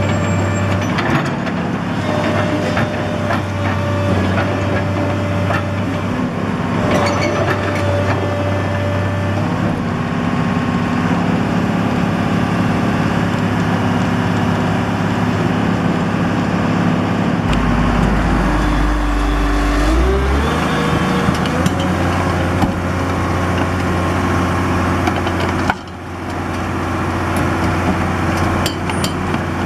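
The 1993 Dresser 6220LC excavator's diesel engine is running steadily. Its pitch shifts up and down several times, with a rising whine about two-thirds of the way through.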